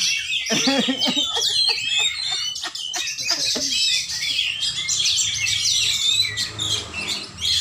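Caged oriental magpie-robins (kacer) singing: a dense, unbroken run of quick, high chirps and whistled phrases, several birds overlapping.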